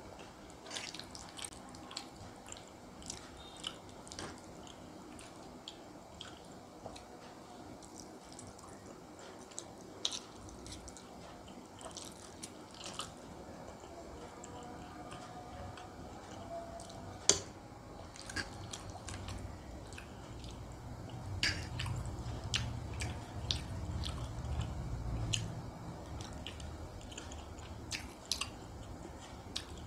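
A person chewing and biting mouthfuls of spicy instant noodles, with many short wet clicks scattered through and one sharper click about halfway through. A low rumble joins in during the second half.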